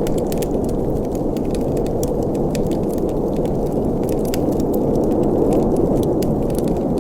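Wood fire burning in a fireplace: a steady low rush of flames with frequent small sharp crackles and pops from the burning logs.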